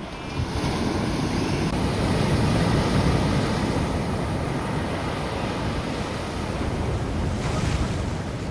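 Ocean surf washing on a beach, its rush swelling about a second in and again near the end, with wind buffeting the microphone.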